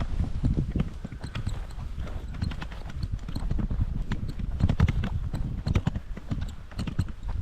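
Footsteps of a person walking on a path, a steady run of irregular crunching steps, with low wind rumble on the microphone.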